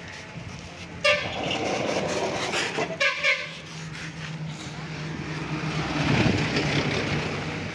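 Street traffic: vehicle horns honking in short beeps about a second in and again around three seconds in, over a running engine. A louder rush of engine and road noise builds near the end, as a vehicle passes close by.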